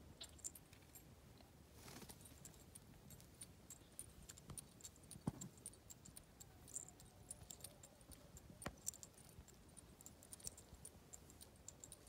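Near silence with faint, scattered light clicks and ticks from pigeons pecking at dry, stony ground, with a soft thump about halfway through and a sharper click a few seconds later.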